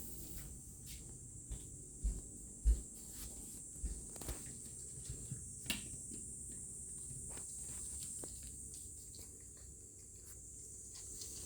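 A steady high-pitched drone of summer insects, with scattered light steps and clicks and a few soft low thumps in the first few seconds.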